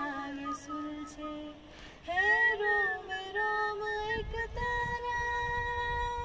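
A woman singing a slow melody into a handheld karaoke microphone, sliding up to a higher line about two seconds in, then holding one long note from a little past halfway.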